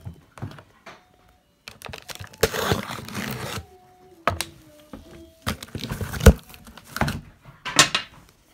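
Packing tape on a cardboard shipping box being torn open, with a scratchy ripping stretch about two and a half seconds in. Sharp taps and knocks come from the box being handled, the loudest a thump about six seconds in.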